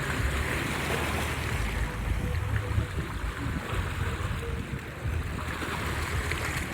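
Sea waves washing ashore, swelling about half a second in and again near the end, with wind on the microphone and a low steady hum underneath.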